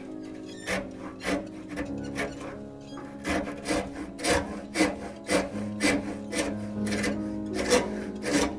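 Rasp or file strokes scraping across wood, about two to three a second, shaping a spiral groove in a maple and mahogany piece. Background music plays underneath.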